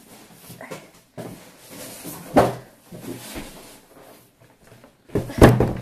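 A heavy cardboard hoverboard box being lifted and shifted, with cardboard rustling and knocks. Two louder thumps come about two and a half seconds in and near the end, and the second is the loudest.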